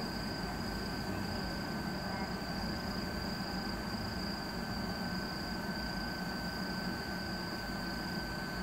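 Steady hum and hiss of an Ohmi Railway electric train standing at the platform with its onboard equipment running, with two thin, steady high-pitched whines over it.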